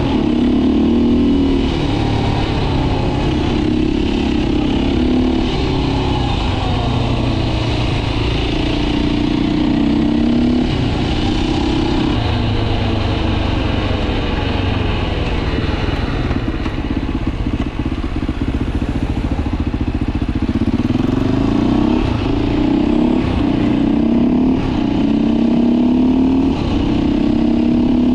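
Beta RR 450 enduro bike's four-stroke single-cylinder engine running under way, its pitch rising and falling with throttle and gear changes.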